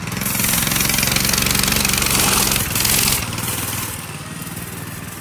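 Mini bike's small single-cylinder engine revving hard while the rear tire spins in loose dirt for a burnout. About three seconds in the revs drop, and the engine runs on more quietly.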